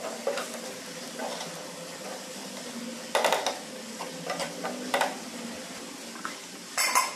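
Spoon stirring and scraping okra and potato pieces around a non-stick kadai over a steady low sizzle of frying. There are louder scrapes about three seconds in and a clatter near the end.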